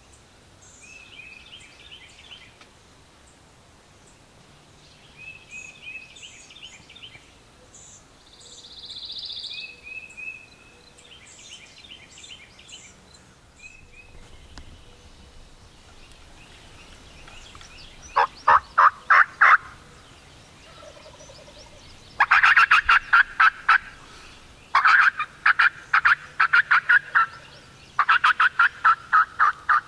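Wild turkey gobbler gobbling loud and close, four times in the second half: each gobble a rapid rattling call of about a second and a half, the last three in quick succession.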